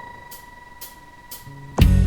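Outro music: a steady held tone over soft ticks about twice a second, then loud rock music with guitar and drums comes in suddenly near the end.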